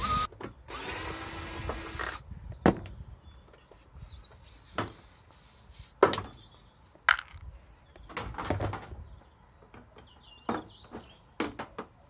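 Cordless drill-driver spinning out a screw from a dishwasher's metal door panel, running steadily for about a second and a half near the start. After it come several sharp clicks and knocks of metal parts being handled as the door panel is worked loose.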